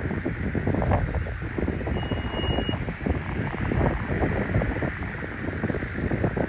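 Wind buffeting the microphone outdoors: a low, gusting rumble and rush that rises and falls irregularly.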